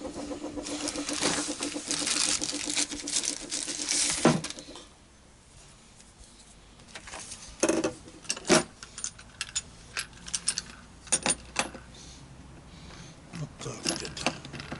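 A few seconds of continuous rustling and handling noise, then scattered metallic clinks and knocks as the parts of a chainsaw attachment for an angle grinder are handled and fitted together.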